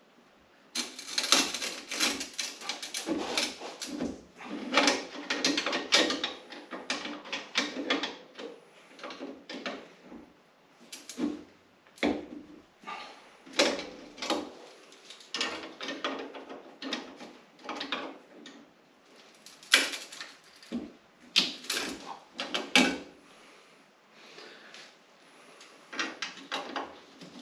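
Metal tool scraping and clicking against the preload adjuster ring on a Polaris Ranger 1000's front coil-over shock as the ring is levered round without a hook spanner. A dense run of rapid clicks and scrapes for the first several seconds, then scattered single clicks and short bursts.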